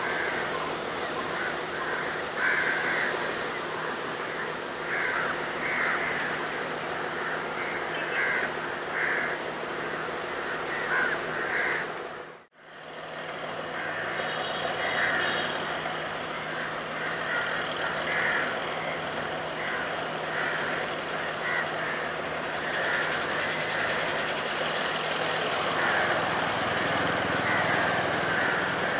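Crows cawing repeatedly over the steady rumble and hum of diesel trains, with a brief break in the sound about twelve seconds in.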